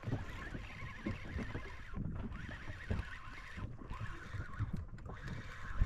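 Water lapping and knocking against a small inflatable boat's hull as it drifts, a run of irregular light knocks over a steady hiss of sea and wind.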